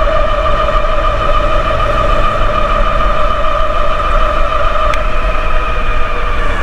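Steady high-pitched whine of two Bafang 750 W geared hub motors driving the e-bike at full power at about 34 mph, with a low wind rumble underneath. The pitch starts to drop slightly near the end as the speed eases off.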